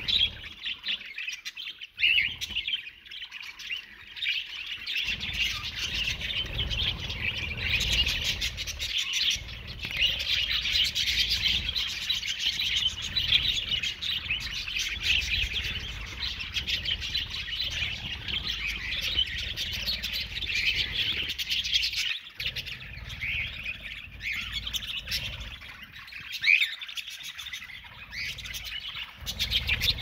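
A flock of budgerigars chattering and chirping continuously, a dense, busy warble of many birds at once.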